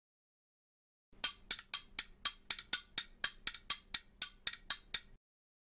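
A rapid, even series of hard knocks, about four a second, over a faint steady hum. The knocks start about a second in and cut off suddenly near the end.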